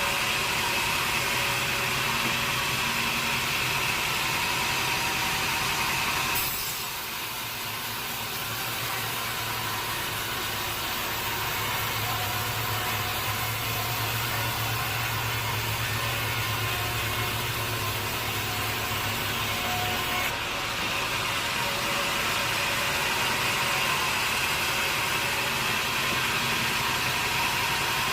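Sawmill machinery running steadily: a saw and its engine. About six seconds in, the sound changes abruptly to a lower hum with less high hiss, and about twenty seconds in it changes back.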